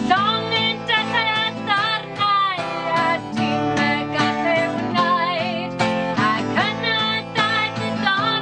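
A woman singing a folk song in Welsh over a strummed acoustic guitar, her held notes wavering with vibrato.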